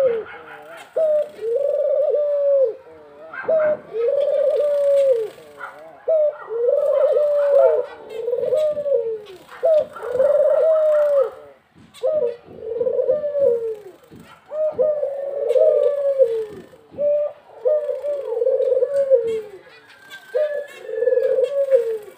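Male ringneck (Barbary) dove cooing over and over: a dozen or so low, rolling coos, each about a second long, following one another with short pauses.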